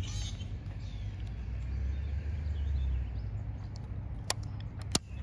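Outdoor background rumble that swells and then fades around the middle, with faint bird chirps and two sharp clicks near the end.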